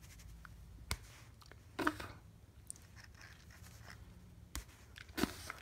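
A few faint clicks and rustles of small hand-handling noise, the loudest about two seconds in, over a steady low hum.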